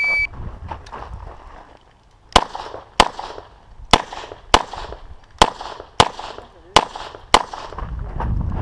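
The tail of a shot timer's start beep, then eight handgun shots fired as four quick pairs (double taps) over about five seconds, starting about two seconds in.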